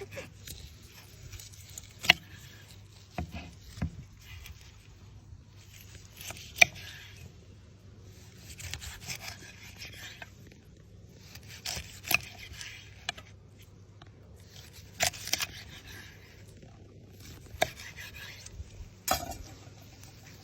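Repeated bouts of scraping, each a second or two long, with sharp clicks and knocks between them.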